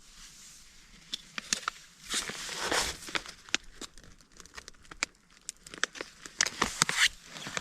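Crinkly plastic material rustling and crackling as it is handled, with many sharp crackles; the loudest rustles come about two seconds in and again near the end.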